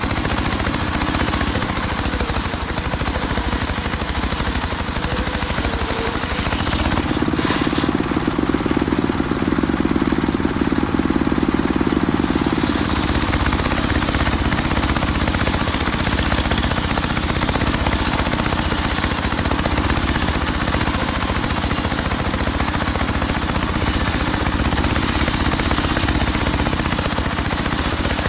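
Homemade circular saw rig running steadily while ripping mahogany. The low drone grows stronger for about five seconds, from roughly seven seconds in.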